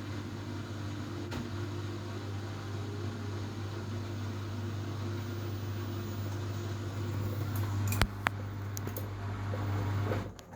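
Washing machine running with a steady low motor hum that stops abruptly near the end, with two sharp clicks about eight seconds in.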